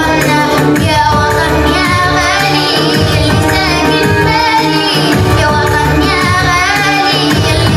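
A young girl singing an Arabic song into a microphone, over a backing track with a steady low beat.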